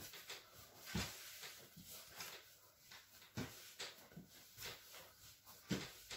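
Bread dough being kneaded by hand on a floured board: irregular soft thumps as the dough is pressed and pushed against the board, with louder ones about a second in, around halfway and near the end.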